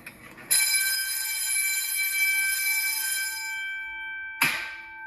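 Fire alarm bell ringing. It starts suddenly about half a second in, then gradually fades. A single sharp knock comes near the end.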